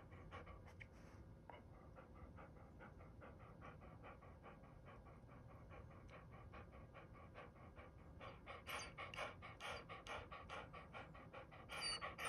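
A dog panting in quick, even breaths, faint at first and louder from about eight seconds in.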